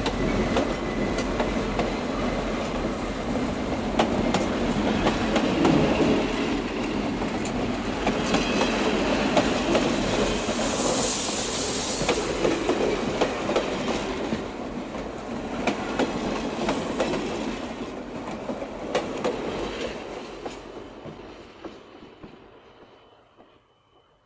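Diesel-hauled train passing, its wheels clicking over the rail joints, then fading away over the last few seconds.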